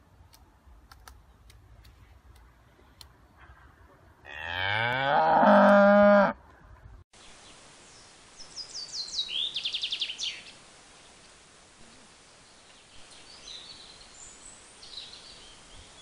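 A cow moos once, a single call of about two seconds starting about four seconds in, rising at the start and then held. Later comes a quick run of high clicking strokes lasting about two seconds, then a few faint chirps.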